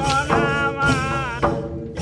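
A man singing a Kathi Nacha folk song in phrases, his voice wavering and bending in pitch, over a steady low tone, with a short break near the end.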